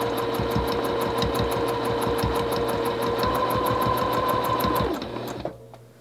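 Juki TL-2010Q sewing machine stitching with a ruler foot: a steady motor hum with fast, even ticking, which winds down and stops about five seconds in.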